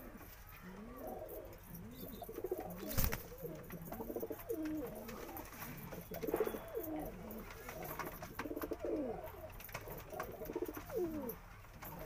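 Domestic Madrasi high-flyer pigeons cooing over and over in low, rolling phrases. A puffed-up cock turning on the ledge gives the bow-coo display call. There is one sharp knock about three seconds in.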